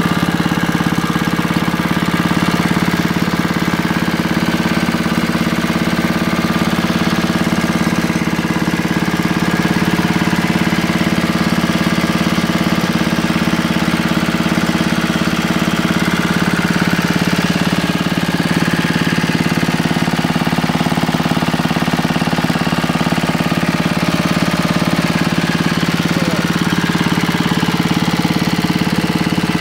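W 239 air-cooled single-cylinder engine running steadily at an even speed on a test stand.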